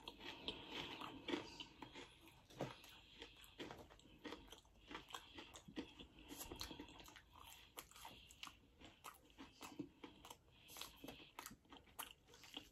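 Faint chewing and biting of deep-fried food, with small irregular crunches and mouth clicks.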